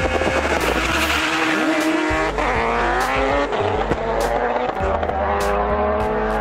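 A Mitsubishi Lancer Evolution and an Audi S3 launching off a drag-strip start line and accelerating away, engines rising in pitch, under background music with a steady beat.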